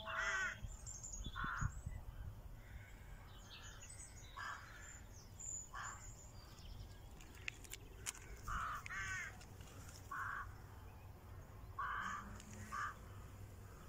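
A bird cawing: about ten short calls spaced a second or two apart, some in close pairs.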